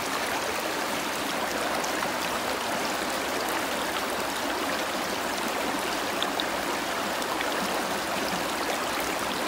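Shallow stream running over a rocky bed: a steady rush of flowing water.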